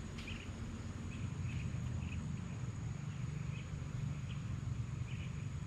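Insect chorus with a steady high-pitched drone, and short chirps repeating at uneven intervals over a low rumble. A brief click comes just after the start.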